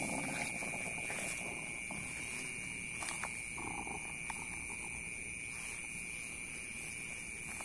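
Steady chorus of night insects, two constant high-pitched tones droning without a break, with a few faint clicks and rustles about three to four seconds in.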